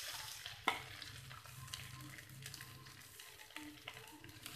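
Grated carrot being spooned off a plate into a hot kadhai of ghee, faintly sizzling and scraping, with one sharp click under a second in and a few lighter ticks.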